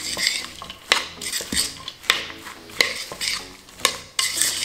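A fork tossing shredded coleslaw in dressing in a mixing bowl: the tines click against the bowl at irregular intervals, roughly one to two times a second, with the shredded cabbage rustling between strokes.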